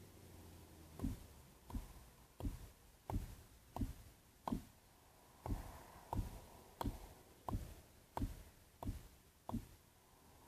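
A regular series of dull knocks or thuds, about one every 0.7 seconds, each sharp at the start and dying away quickly.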